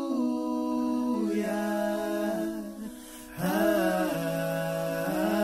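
Background music of slow, long-held chords without words, which drop away briefly about three seconds in and then come back.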